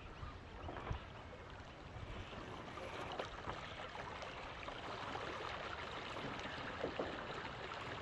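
Water rushing and trickling along the hull of a small sailboat under way, a steady splashy wash that grows a little louder about three seconds in.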